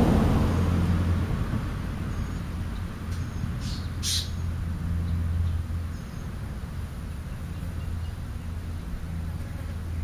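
Steady low vehicle rumble, with two brief high-pitched chirps about three and a half and four seconds in.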